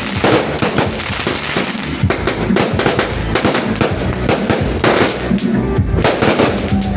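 Fireworks cake firing a rapid, continuous barrage of overlapping bangs and crackles.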